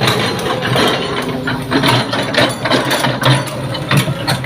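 Excavator engine running steadily under an irregular run of sharp knocks and clatters.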